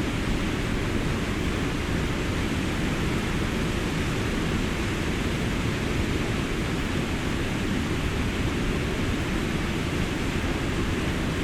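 Water rushing steadily over a mill dam, an even, unbroken roar heaviest in the low end.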